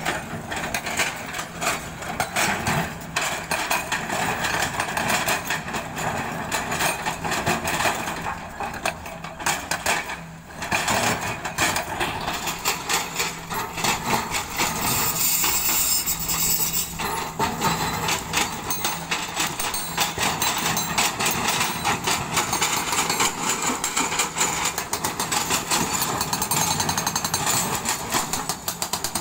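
Hydraulic breaker on a Kobelco excavator hammering rock, a rapid continuous run of blows with a brief break about ten seconds in. The excavator's diesel engine hums steadily underneath.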